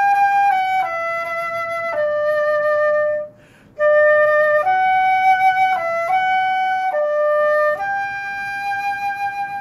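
A flute playing a slow melody of long held notes, with a quick breath a little over three seconds in, ending on a held note. The flute has a torn pad and is poorly adjusted, which the player says keeps even well-played tone from being truly healthy.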